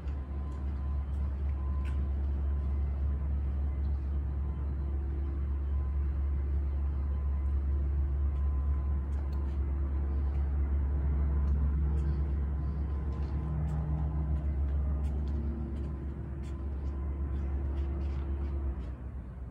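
A steady low rumble that drops away near the end, with faint held tones above it and a few light clicks.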